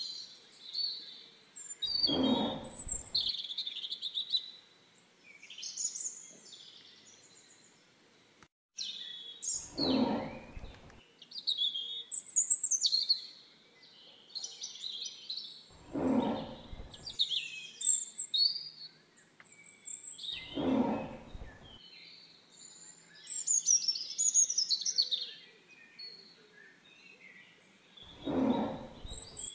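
Songbirds chirping and singing throughout, and a tiger giving five deep calls about a second long each, several seconds apart.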